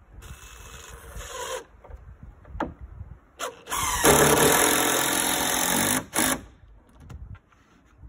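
Cordless drill driving screws through floorboards into the joists: a short run of the motor near the start, then a longer, louder run of about two seconds past the middle, followed by a brief spin.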